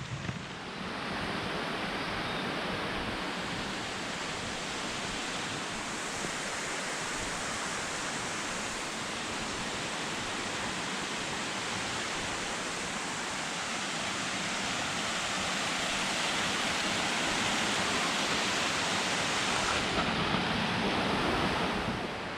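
Steady rush of a mountain river's water flowing over rocks, growing somewhat louder in the second half.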